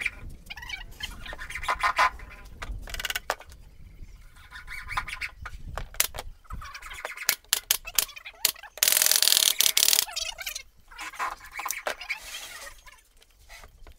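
Pneumatic nail gun firing a run of sharp shots into plywood as the panels of a speaker cabinet are joined, with a loud hiss of air lasting about a second near the middle.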